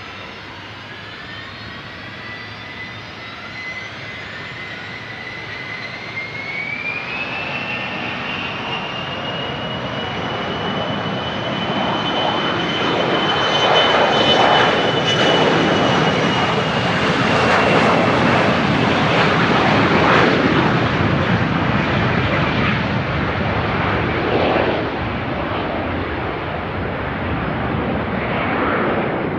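Business jet's turbofan engines spooling up for takeoff: a whine climbs in pitch over the first several seconds, then a loud roar builds to a peak about midway and eases off near the end.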